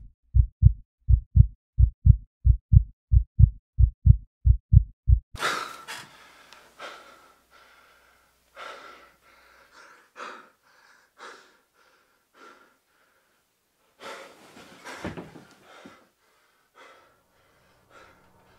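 A fast, pounding heartbeat, about three beats a second, that stops abruptly about five seconds in. A man then breathes hard and raggedly with gasps, panting as he wakes up from a bad dream.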